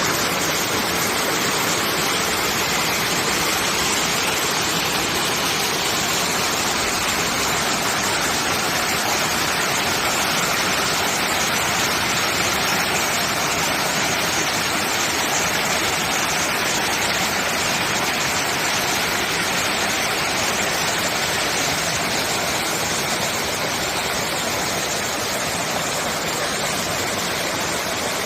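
Mountain stream water rushing and splashing over rocks in a steady, unbroken flow.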